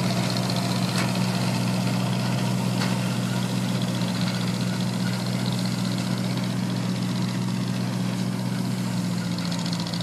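Oliver combine running steadily while harvesting wheat, a constant low engine drone with machinery noise over it.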